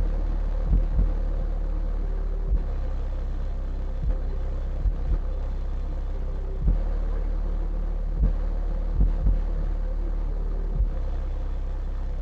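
Skar Audio VXF-12 D4 12-inch subwoofer in a Skar SK1X12V box playing a steady, very deep bass note at full power, driven at about 1,290 watts into 4.6 ohms. Irregular short thumps come through over the top of it.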